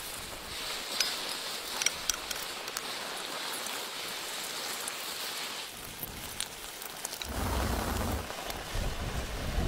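Eggs frying in butter in a pan over a campfire: a steady hissing sizzle with a couple of sharp crackles in the first two seconds, which drops away a little over halfway through. A low rumble comes in for the last couple of seconds.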